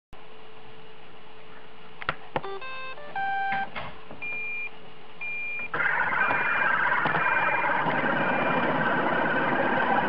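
An iRobot Roomba starting a cleaning run. A button clicks twice, the robot plays a short tune of electronic notes and gives two short beeps. About six seconds in, its vacuum and brush motors start and run with a steady whir, with a few more short beeps over it.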